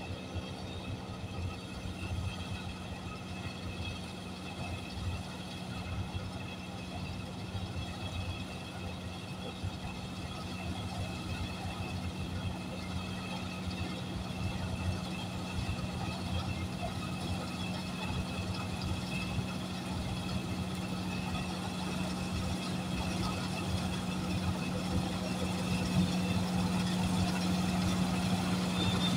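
Tracked rice combine harvester running steadily as it cuts the paddy, its engine a constant hum with a steady low tone, growing gradually louder as the machine draws closer.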